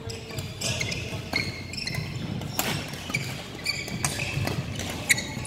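Badminton rally: rackets striking the shuttlecock in sharp hits about a second apart, with shoes squeaking briefly on the court floor between shots.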